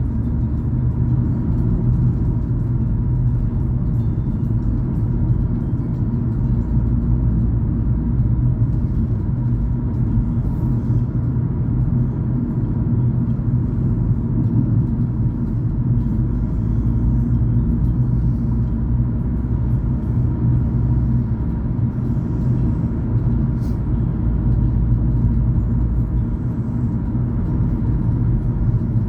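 Car driving on a city road, heard from inside the cabin: a steady low rumble of engine and tyre noise that keeps on without a break.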